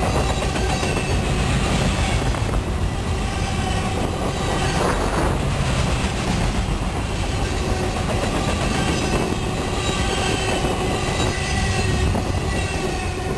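Intermodal freight train of container-laden well cars passing close by: the steady rumble and rattle of steel wheels on rail, with thin, faint high-pitched wheel squeals over it.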